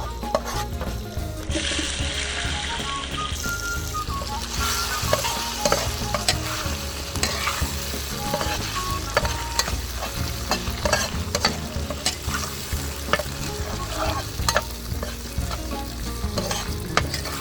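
Ginger frying in hot oil: a steady sizzle, stirred with a utensil that clicks and scrapes against the pan. The sizzle swells about a second and a half in and again a few seconds later.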